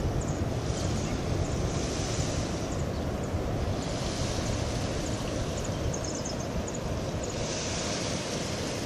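Steady wash of surf breaking on the distant coral reef, with wind rumbling on the microphone.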